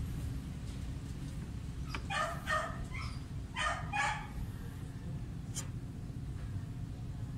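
A dog barking: two pairs of short barks about a second and a half apart, over a steady low hum.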